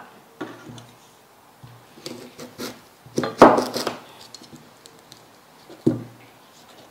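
Kitchen knife slicing an onion into thin strips: a few scattered cuts and knocks at irregular intervals, the loudest a little past halfway.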